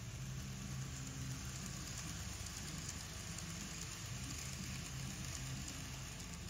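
Model trains rolling along the layout's track: a steady rumble and clatter of small wheels on rail, with a low motor hum underneath.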